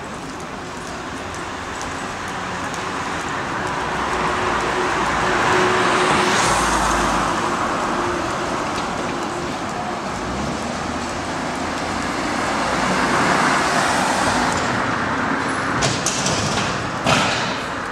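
City street traffic passing, a steady rush that swells as vehicles go by, loudest about six and again about thirteen seconds in. A few sharp knocks sound near the end.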